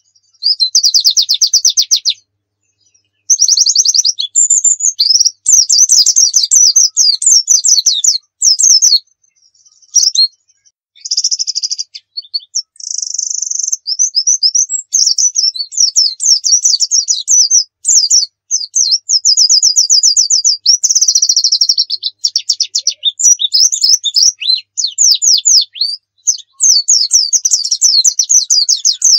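Pleci (white-eye) in full song: a high-pitched, nonstop run of rapid trills and chattering warbled phrases, broken by a few short pauses.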